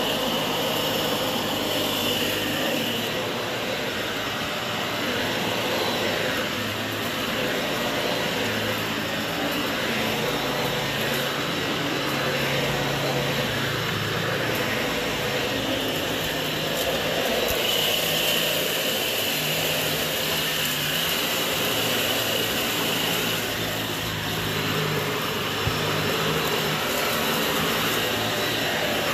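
Dyson upright vacuum cleaner running as it is pushed back and forth over carpet: a steady motor whine and airflow rush, with the low hum shifting slightly in pitch from stroke to stroke.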